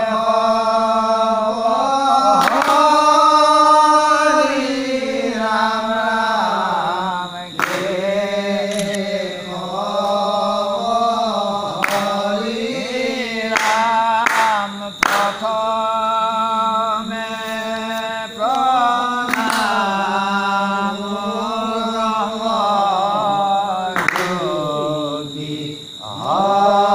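Assamese naam prasanga devotional singing: chanted verses in long, drawn-out phrases with short breaths between them, and a few sharp clicks.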